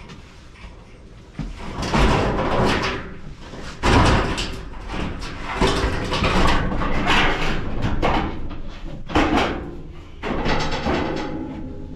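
Irregular loud bangs and rattles from an animal enclosure being taken apart, starting about a second and a half in.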